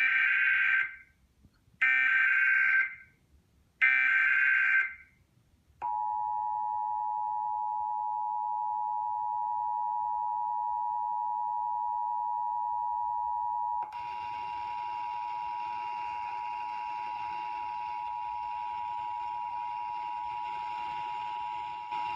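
Emergency Alert System test: three short bursts of SAME digital header data, each a harsh warbling screech about a second long, two seconds apart. About six seconds in, the two-tone EAS attention signal starts, a steady dissonant pair of tones. About eight seconds later a hiss joins under it, and the tone runs on to the end.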